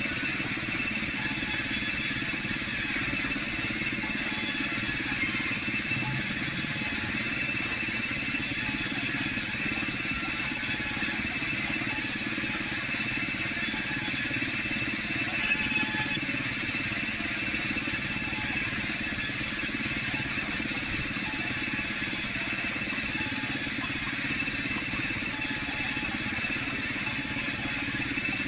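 Sawmill band saw with a roller feed running steadily as boards are fed through it: an even machine hum with a steady high whine.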